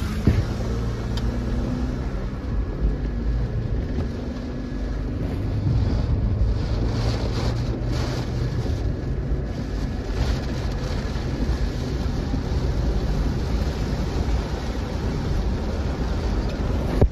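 Steady road and engine noise inside a moving car, with a low hum and rushing noise throughout.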